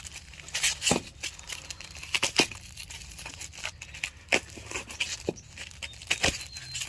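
Packing material being handled and pulled apart: irregular crinkling and tearing with scattered sharp clicks and knocks.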